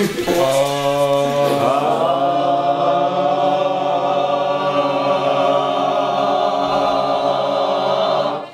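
Several men's voices singing one long held chord together, unaccompanied, cutting off together just before the end.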